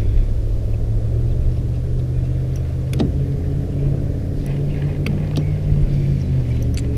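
A boat motor running steadily with a low, even hum, and a single sharp click about three seconds in.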